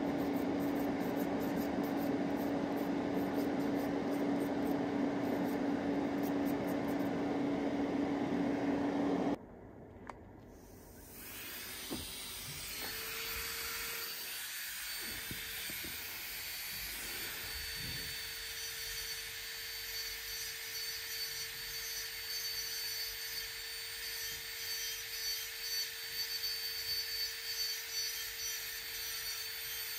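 Electric nail drill running steadily with a constant whir. It cuts off about nine seconds in. After a short pause it runs again at a higher pitch, with uneven scraping as the bit works the nails.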